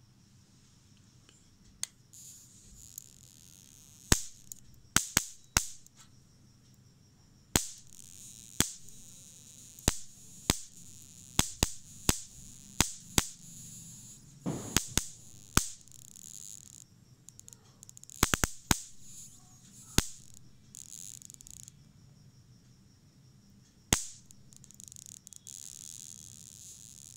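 Electric mosquito racquet's charged mesh arcing to a pencil's graphite lead: a string of sharp spark snaps at irregular intervals, with stretches of high sizzling crackle while the tip rests on the wires.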